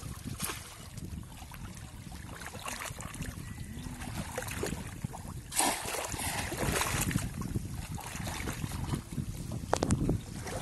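Water splashing and sloshing as people wade through shallow water and plunge bamboo polo fish traps down into it, with a few sharper splashes about six seconds in and again near the end.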